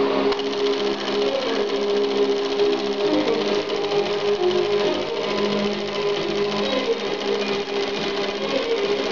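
Eumig P III 9.5 mm film projector running, its film-transport mechanism making a fast, even clatter, with music playing alongside.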